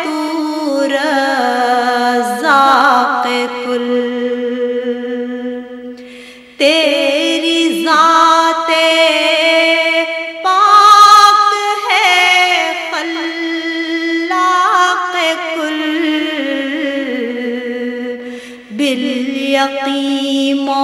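A naat, an Urdu devotional song, sung by a solo voice in long, drawn-out melismatic notes. It dips almost to nothing about six seconds in, then comes back in sharply.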